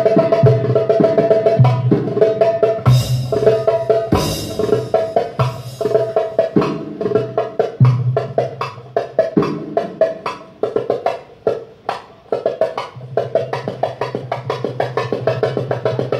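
Darbuka (Middle Eastern goblet drum) played solo with fast, dense strokes and rolls over steady held backing tones. Two louder, harsher hits stand out about three and four seconds in.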